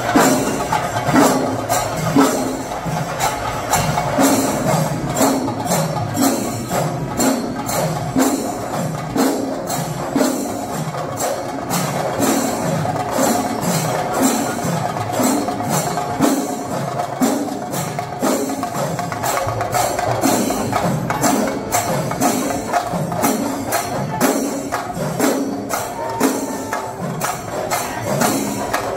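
Rhythmic percussion-led music: a dense, steady stream of sharp strikes with jingling, tambourine-like metal over a repeating low pattern.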